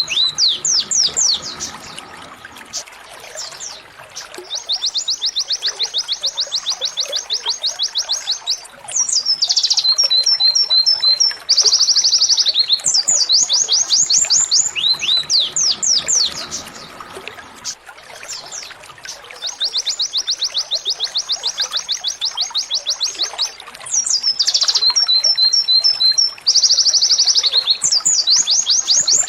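Domestic canary singing 'tembakan' trills: long fast runs of high repeated notes, broken by short sweeping phrases and spaced chips. The same sequence of phrases comes round again about halfway through.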